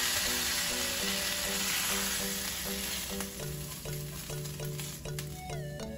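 Hot frying pan sizzling, fading away over the first half, as a silicone spatula pushes fettuccine out of it onto a plate. Background music with repeating notes runs under it and is left on its own near the end.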